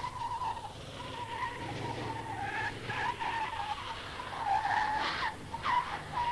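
Tatra 613's tyres squealing as the car is cornered hard at the limit of grip, the squeal wavering in pitch with a few short rising yelps near the end.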